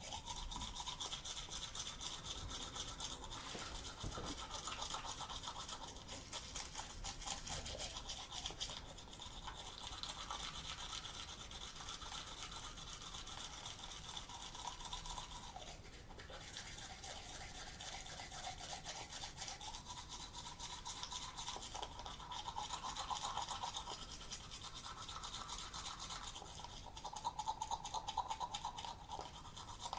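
Teeth being brushed with a manual toothbrush: continuous quick back-and-forth scrubbing of bristles on teeth, with a wet, shifting tone as the brush moves around the mouth and a few louder stretches near the middle and the end.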